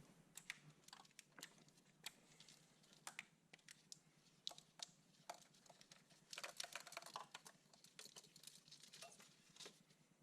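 Faint, irregular clicks and light taps, with a quick flurry of them about six seconds in.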